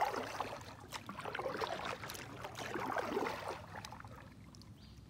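Water splashing and dripping close by, irregular with small clicks, dying away about four seconds in.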